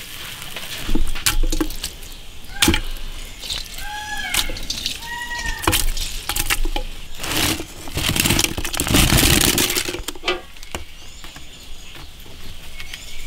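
Scattered knocks and soft thuds as pieces of blanched pork and fried meatballs go into a glazed clay jar, with a longer rustling clatter in the middle. A few short bird chirps are heard, mostly around the middle.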